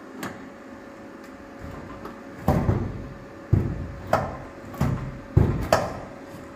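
Steel door of a 1962 C20 crew cab being worked open and shut, clunking against the cab about six times in quick succession from a couple of seconds in. The newly built door catches as it swings, for lack of clearance.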